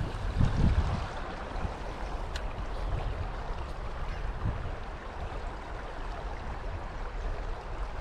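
Shallow creek water running steadily over stones, an even rushing hiss. Low rumbling on the microphone underneath, loudest about half a second in.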